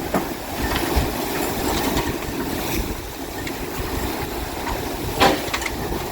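Storm wind buffeting the phone's microphone over the wash of rough waves, with one sharp knock a little over five seconds in.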